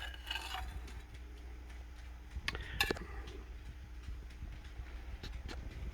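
A serving utensil lifting a piece of baked lasagna out of the pan and setting it on a plate, making a few light clicks and knocks against the dishes over a low steady hum.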